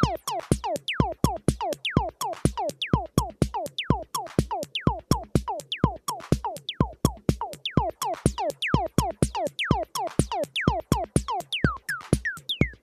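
Behringer Edge analog percussion synthesizer playing a sequenced techno loop: a fast, even run of deep bass thumps with short electronic blips that sweep sharply down in pitch on each step.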